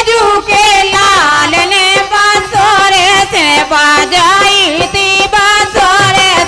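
Women singing a Kartik folk song (kartik geet) in a high, ornamented melody into microphones, with a beat behind the voices.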